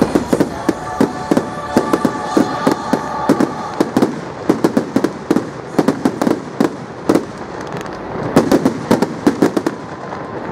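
Fireworks display: a rapid, irregular run of sharp bangs and crackles, several a second, loudest near the middle and again about eight seconds in.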